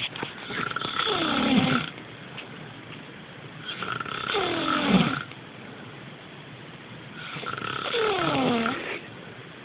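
A sleeping person snoring: three long snores about three and a half seconds apart, each with a pitch that slides downward as it fades.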